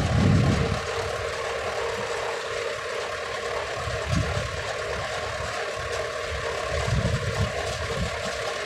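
HMT 5911 tractor's diesel engine running steadily while driving, pulling a heavily loaded trolley, with low gusts of wind buffeting the microphone at the start, about four seconds in and around seven seconds in.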